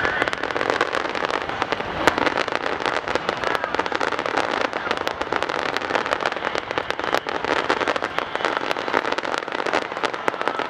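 Starmine fireworks: a dense, continuous crackling and popping of many small shells bursting in rapid succession, with no single large boom standing out.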